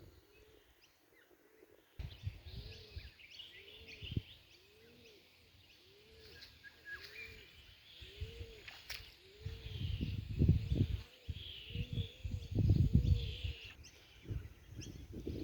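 Birds calling outdoors: a steady run of low, repeated hooting notes with higher chirps above, under low rumbling gusts that grow louder past the middle.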